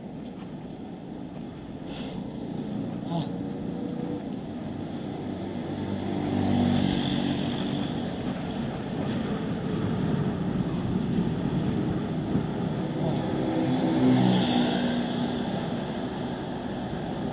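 Motor vehicles passing on a road twice, about six and fourteen seconds in, each engine growing louder and then fading, over a steady rush of wind and traffic noise.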